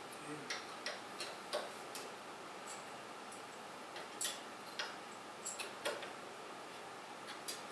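Light clicks and taps at irregular intervals, with a few sharper ones around four and six seconds in, from a screwdriver and screw being worked into PC hardware while trying to get the screw to catch.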